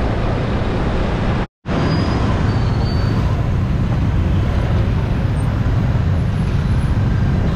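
City street noise: a steady rumble of traffic, cut off by a brief dropout about one and a half seconds in.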